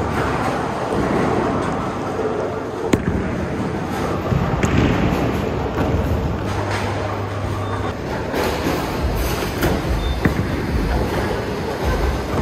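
Bowling alley din: a steady low rumble of balls rolling down the lanes, with a few sharp knocks and clatters and voices in the background.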